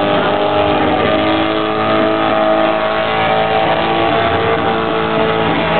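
Rotary engine in a Suzuki Samurai running with a steady, held engine note.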